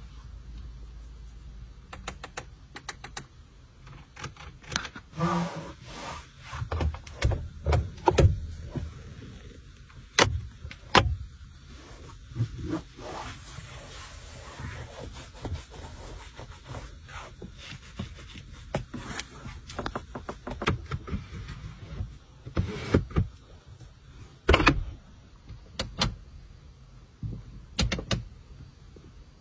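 Clicks and knocks from a BYD Tang's cabin buttons and switches being pressed, with stretches of hum from the small electric motors that work its powered windows, roof and seats.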